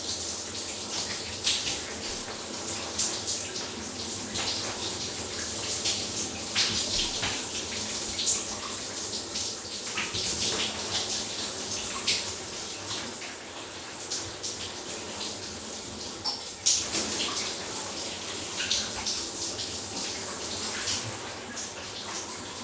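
Shower water running steadily and spattering, with uneven splashes and spatters throughout, a sharper splash about seventeen seconds in.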